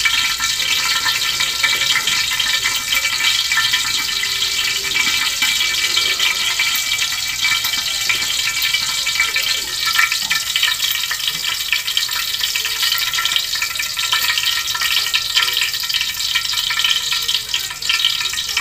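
Steady hissing and bubbling of a large stainless stockpot of chicken broth boiling on a gas burner. There is a brief metal clink about ten seconds in as the lid goes on.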